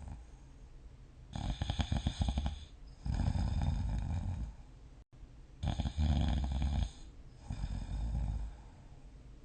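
A person snoring in deep sleep: four snores on the in and out breaths, the first with a fast fluttering rattle.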